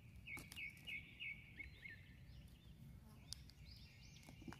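Faint woodland ambience: small birds chirping, with a quick run of about five chirps in the first second and a half, over a steady high drone. A few soft clicks.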